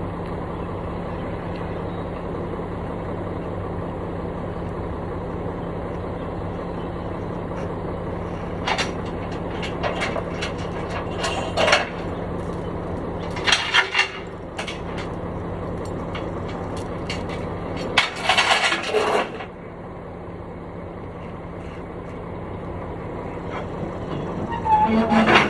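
A piece of construction equipment's engine running steadily at idle, a constant drone, with several short, louder noisy bursts over it, the longest about midway and near the end.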